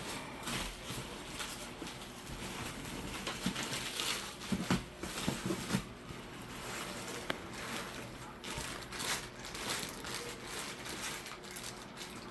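Packing paper and a plastic pop protector being handled and unwrapped: irregular rustling and crinkling with occasional sharp clicks.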